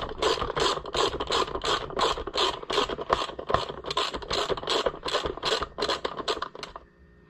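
Socket driver turning the centre bolt of a Homelite Super XL chainsaw's recoil starter pulley. It makes an even run of short rasping clicks, about three or four a second, which stops shortly before the end.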